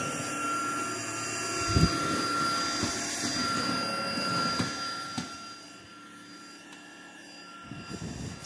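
Cordless stick vacuum cleaner running on a hard floor: a steady motor whine over the rush of air, with a few light knocks as the floor head moves. It drops much quieter about five and a half seconds in, and the whine stops shortly before the end.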